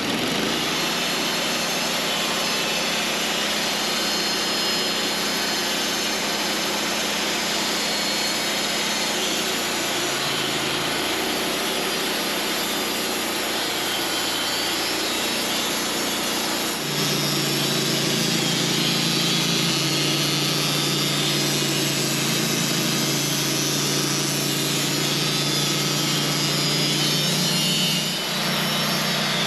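Engine-driven sawmill running as it saws a honey locust log: a steady mechanical drone with a dense hiss, which steps up in level and pitch about 17 seconds in and dips briefly near the end.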